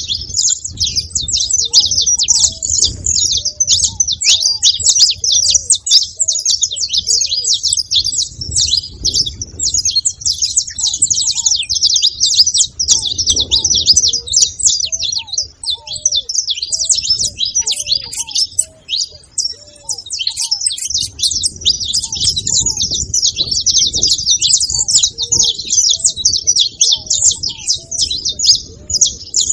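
A group of saffron finches (canário-da-terra) chirping and chattering continuously in a dense, rapid, high-pitched chorus.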